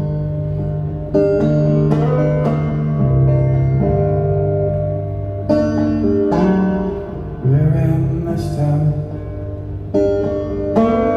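Live solo archtop hollow-body electric guitar played through a small amplifier: sustained, ringing notes picked in phrases, some of them sliding up and down in pitch.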